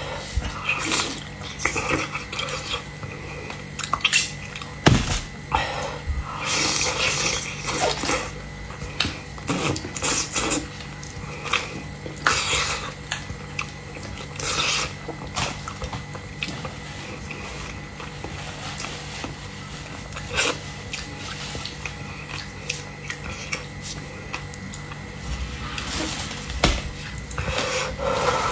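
Close-miked eating sounds from a seafood meal: irregular wet smacks, bites and slurps, with sharp clicks of shells and utensils against dishes.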